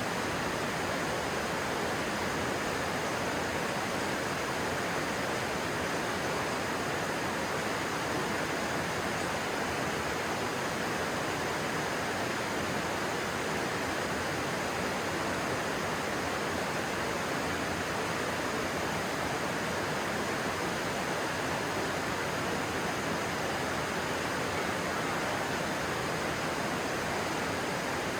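Stream water flowing steadily, an even, unchanging noise.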